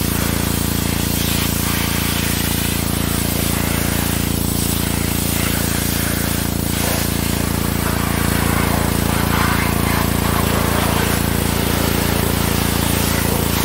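Pressure washer running, a steady machine drone under the hiss of its high-pressure water jet spraying the mower's body and tyre, the hiss rising and falling as the wand moves.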